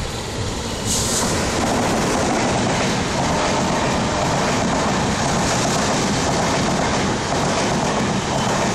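Rajdhani Express passing at speed: its WAP-7 electric locomotive goes by beneath about a second in, where the sound gets louder, then the LHB coaches follow in a steady rush of wheel and rail noise with faint clickety-clack.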